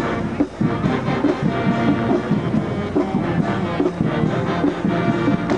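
High school marching band playing a brass-heavy tune in short, rhythmic notes on a steady beat.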